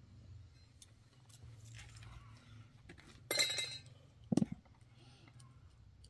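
A short clinking, rattling burst about three seconds in as electrical wire and small fittings are handled, with faint clicks around it, followed by a brief low voice-like sound.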